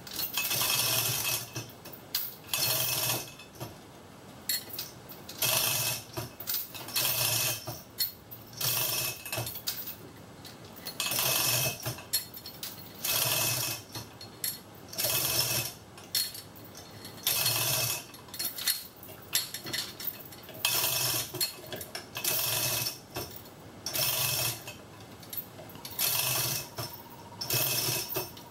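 Manual chain hoist being hand-pulled to raise an engine: the chain rattles through the hoist in short bursts, one per pull, about every two seconds.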